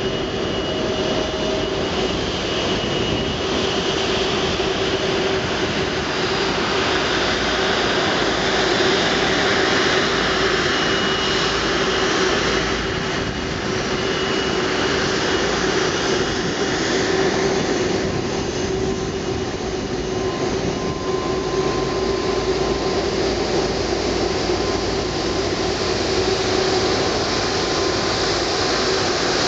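Twin Rolls-Royce Trent 700 turbofans of an Airbus A330-200 at taxi power as the airliner taxis past close by: a steady jet rush with a steady engine whine over it, swelling and easing slightly as the aircraft turns.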